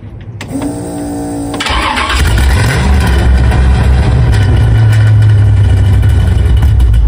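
Chevrolet 454 big-block V8 in a 1968 Impala being cranked over on the starter and catching about a second and a half in. It settles into a loud, steady run heard at the exhaust, starting up after its head gaskets were replaced.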